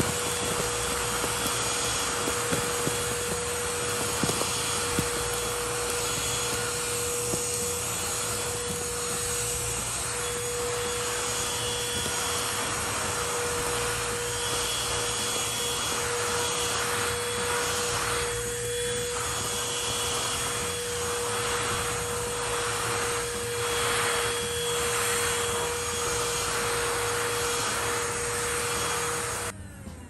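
Handheld vacuum cleaner running on carpet, its motor holding one steady pitch as it sucks up chip crumbs, with a few clicks in the first five seconds. It switches off just before the end.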